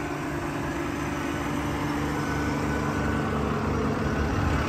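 Diesel engine on a crane service truck idling steadily, a low even hum that slowly grows louder as the microphone moves in toward the truck.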